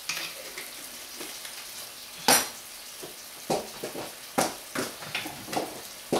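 Vegetable sauce of tomatoes, peppers, garlic and carrot sizzling in a skillet: a steady hiss with scattered pops and clicks, the sharpest about two seconds in.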